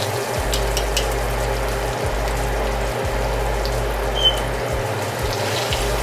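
Breaded green tomato slices frying in hot olive oil in a pan: a steady sizzle with a few sharp pops and crackles of the grease.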